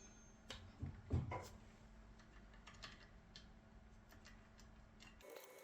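A few light clicks and knocks in the first second and a half, then faint scattered ticks: a mounting bolt being fitted to the lathe motor while feeling for its hole.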